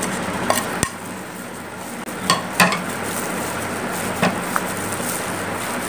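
A steel spoon clicking lightly against a glass mixing bowl and a plate, about five times, over a steady hiss.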